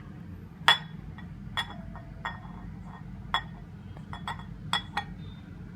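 A spoon clinking against the side of a bowl while mashed potato and bread crumbs are mixed: about seven light, uneven clinks, each with a short ring.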